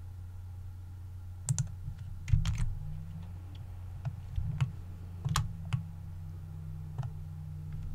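Scattered, irregular clicks of a computer keyboard and mouse, about a dozen over several seconds, some in quick pairs, over a steady low hum.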